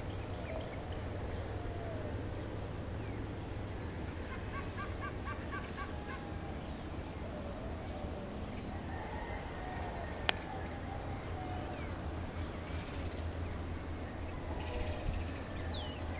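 Various birds calling and chirping in the early morning, including a quick run of short chirps about four seconds in, over a steady low rumble. A single sharp click comes about ten seconds in.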